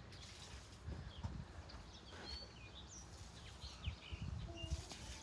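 Faint, scattered bird chirps and short calls over quiet outdoor ambience, with soft low bumps on the microphone.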